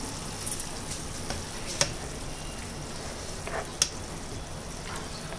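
Chicken mince frying with its sauce in a nonstick pan, sizzling steadily as it is stirred with a spatula. The spatula clacks sharply against the pan twice, about two seconds apart.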